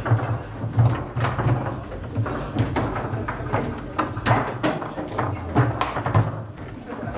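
Foosball table in play: irregular sharp clacks of the ball striking the plastic players and table walls, with the rods knocking as they are slid and spun.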